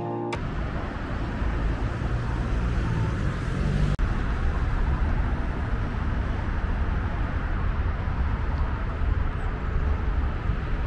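A road vehicle driving: steady low rumble of engine and tyres with road noise, with a brief break about four seconds in.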